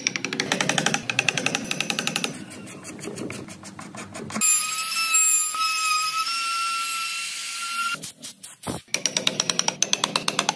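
A handheld trim router runs with a steady motor whine as it routs a recess in hardwood, for about four seconds in the middle. It starts and stops abruptly. A fast rhythmic beat plays at the start and again near the end.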